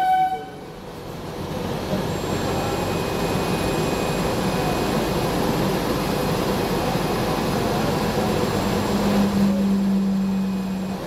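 Steady running noise inside a diesel railbus rolling slowly in street traffic. A short tone cuts off right at the start, and a steady low hum comes in near the end.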